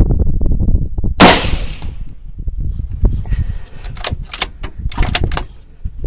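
A single rifle shot about a second in, a loud crack that rings out briefly, fired at feral hogs, which then scatter. Wind rumbles on the microphone before it, and a few sharp clicks follow a few seconds later.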